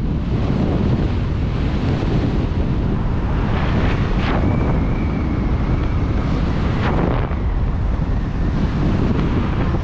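Steady rush of airflow on a helmet camera's microphone during flight under an open parachute canopy, with a faint thin whistle for a couple of seconds midway.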